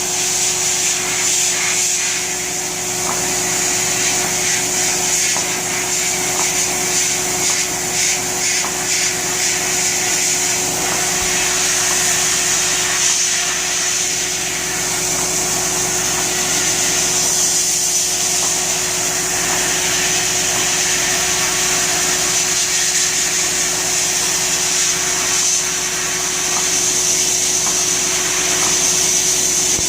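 Media blasting cabinet in use: a steady, loud hiss of compressed air and abrasive from the blast gun over a steady hum, as rust is blasted off a steel radio chassis.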